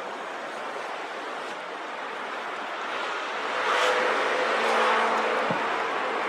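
Steady street traffic noise. A car passes close by, its sound swelling from about three seconds in and easing off near the end.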